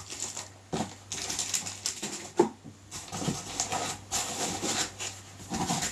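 Plastic wrapping and a polyethylene foam packing insert being handled: irregular rustling and crinkling, with a few dull knocks and foam creaks as the top foam layer is lifted.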